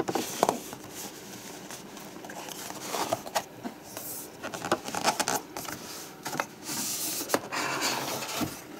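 A cardboard sleeve being slid off a tablet box by hand: cardboard scraping and rubbing on cardboard, with scattered light taps and knocks as the box is handled.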